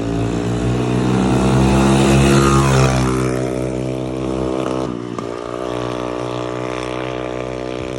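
Engine of a 150cc motorcycle running, revving up over the first couple of seconds, dropping back about three seconds in, then running steadily.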